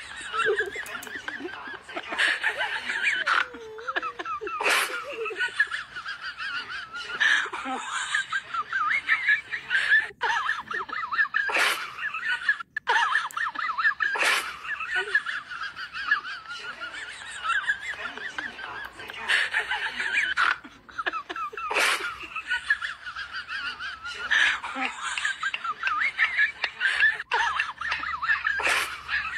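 Laughter, a mix of chuckling and snickering, going on without a break and rising into louder peaks every couple of seconds.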